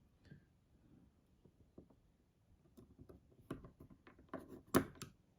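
Small, sharp clicks and taps of a screwdriver bit and folding-knife parts being handled during reassembly. They come sparsely at first, then closer together and louder in the second half, with the sharpest click near the end.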